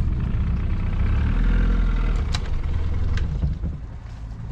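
A boat engine idling, a steady low drone, with two light knocks about two and three seconds in.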